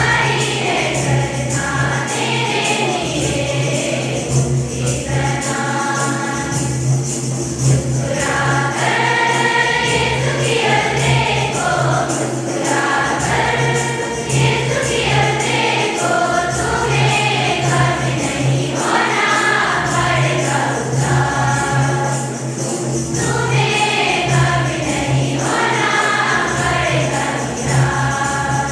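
A hymn sung by a group of voices, with shaken jingling percussion keeping a steady beat over a continuous low drone.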